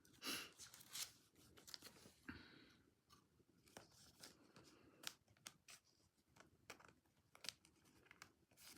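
Faint handling of trading cards and plastic card protectors: scattered light clicks and short rustles, the loudest near the start and about two seconds in.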